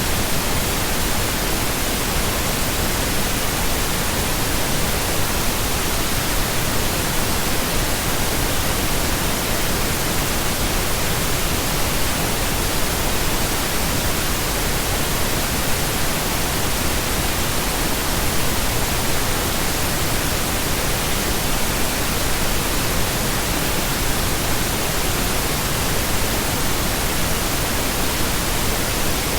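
Steady synthetic pink noise: an even, unchanging hiss spread across all pitches, with no tones or events.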